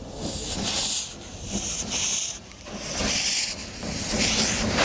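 Steam hissing in repeated bursts about once a second from the SMC1 'Coffee Pot' steam railmotor, over a low rumble.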